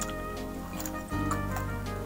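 Background music of sustained chords that change about a second in, with short clicks over it.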